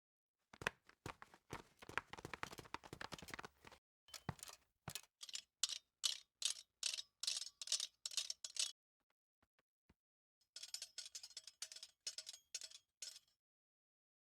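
A cartoon sound effect made of light ticks and clicks: a dense run over the first few seconds, then evenly spaced clicks about three a second with a faint ringing tone, and after a two-second pause a quicker run of clicks.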